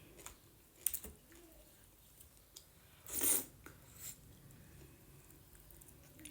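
Close-up eating sounds of a person chewing a meal of white-corn dhido, with a few sharp mouth clicks about a second in and a louder, short noisy burst a little after three seconds.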